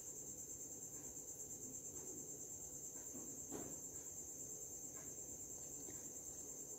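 Faint, steady high-pitched chirring of crickets, pulsing rapidly and evenly. A faint light knock about three and a half seconds in.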